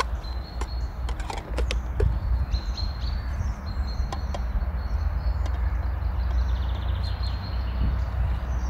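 Birds chirping in short high calls over a steady low rumble, with a quick run of sharp clicks or crackles in the first two seconds.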